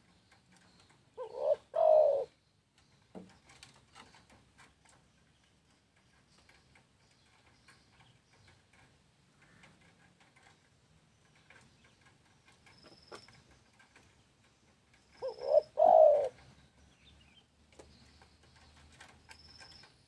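Spotted dove cooing: two low song phrases about fourteen seconds apart, each a couple of short coos followed by a longer, louder one.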